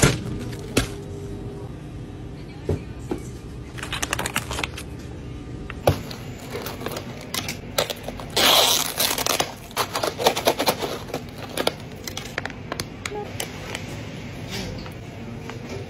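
Close-up handling of plastic packaging: a cup of ice and its lid clicking and crinkling, with a louder rustling, tearing burst a little past halfway.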